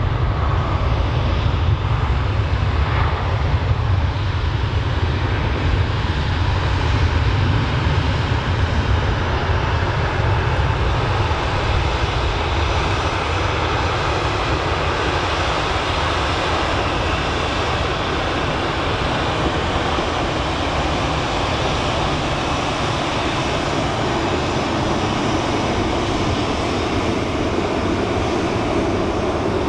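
Boeing 737-800 airliner taxiing past, its CFM56 turbofan engines running at low taxi power with a steady rushing whine. The deep rumble eases about halfway through while the hiss stays.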